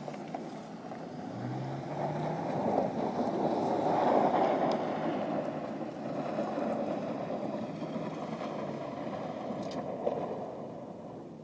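Chevrolet Avalanche pickup's V8 engine revving hard as the truck power-slides, with tyre noise. The sound builds to a peak about four seconds in, then fades away toward the end.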